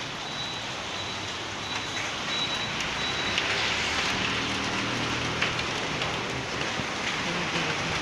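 Heavy rain pouring steadily, growing louder about three seconds in, with a vehicle's engine passing in the middle.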